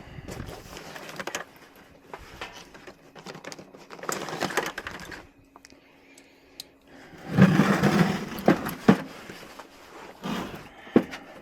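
Hands and tools working on furnace parts: scattered clicks and knocks, with a louder rattling stretch about seven seconds in that lasts a couple of seconds.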